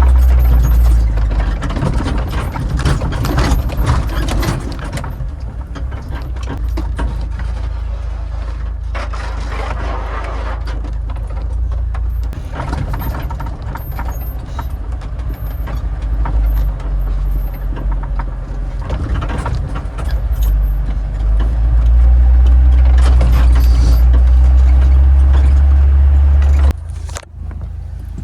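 UAZ Hunter off-road SUV driving: a loud, low engine drone with scattered knocks and rattles. The drone drops off suddenly near the end.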